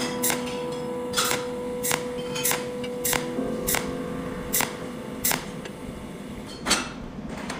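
Pulse cold welder firing, each discharge a sharp snapping click, about nine of them at uneven intervals, as the filler strip is fused onto a red-hot weld bead.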